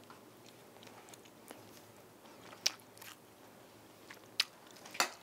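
A person eating fried rice from a bowl with a spoon: quiet chewing, with a few sharp clicks that are louder than the chewing, one in the middle and two near the end.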